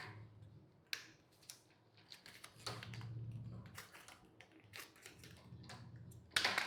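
Faint scattered plastic clicks and light knocks from handling the pieces of a spine-shaped cable organizer, with a louder run of clicks near the end.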